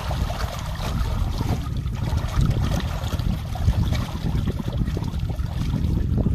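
Muddy water sloshing and splashing as a man scoops mud by hand from around a bogged tractor's wheel and wades through it, over a steady low rumble.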